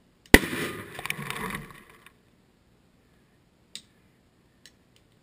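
Dry-ice bottle bomb, a 1.5-litre plastic bottle of warm water and dry ice, bursting with one sharp bang about a third of a second in, as gas pressure from the dry ice splits the bottle. The bang is followed by a noisy tail of about a second and a half, then two faint ticks later on.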